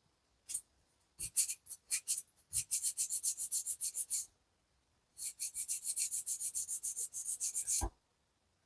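Small hand file rasping back and forth on a diecast metal model car body, in two runs of quick even strokes at about seven a second, with a short knock as the second run ends.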